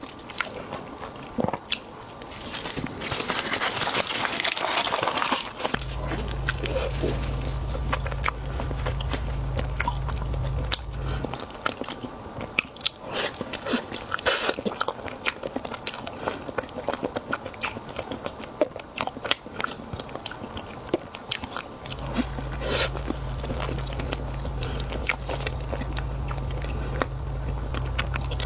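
Close-miked eating: a person biting and chewing food with many crisp crunches and wet clicks. A low steady hum comes in underneath twice, for several seconds each time.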